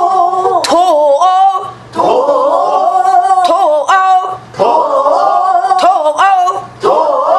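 Pansori singing: the line "dora-ori" sung over and over in short phrases with wide, bending vibrato, a few times in a row with short breaths between. Sharp stick strokes on a buk barrel drum mark the beat.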